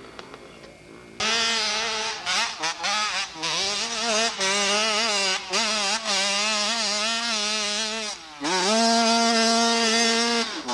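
Dirt bike engine running hard at high revs close by as it climbs a hill, its buzzing note dipping several times as the throttle comes off and on. Near the end it falls away briefly, then rises in pitch again and holds steady.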